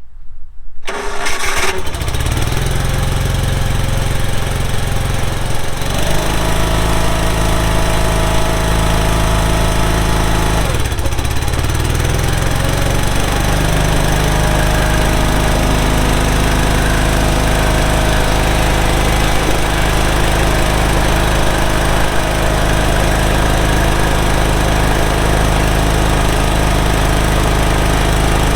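The Barreto 30SG stump grinder's 31 hp Briggs & Stratton V-twin gas engine starts up and then runs. Its note changes about six seconds in, sags briefly around eleven seconds, then picks back up and runs steadily.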